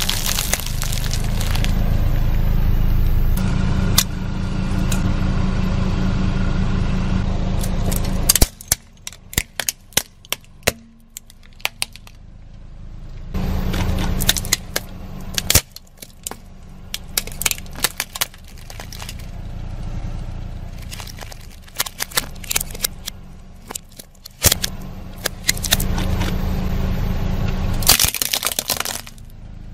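Chevrolet car creeping over small objects on asphalt: a steady low engine and tyre rumble, broken by runs of sharp cracks and snaps as plastic packaging and plastic toys are crushed under the tyre.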